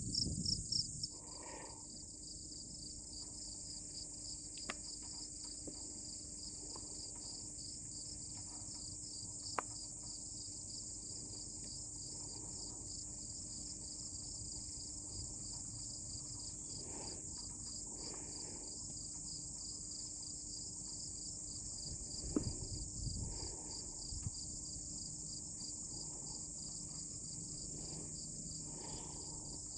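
Steady outdoor insect chorus, a continuous high pulsing trill of crickets, with a few faint brief sounds and a low thump a little past the middle.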